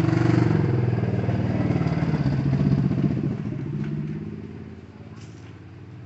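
A small motorcycle engine passing by. It swells quickly to its loudest, then fades away over about five seconds.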